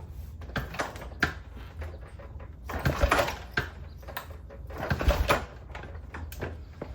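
Two kicks on the kick-starter of a 1975 Norton Commando Mk3's 828 cc parallel twin, started cold with the choke on. Each kick briefly turns the engine over, about two seconds apart, and it does not catch.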